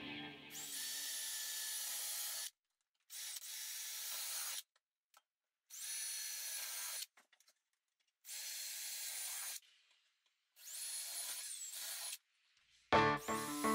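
Cordless drill running in five short bursts, each starting with a high motor whine that rises as it spins up, with silent gaps between them.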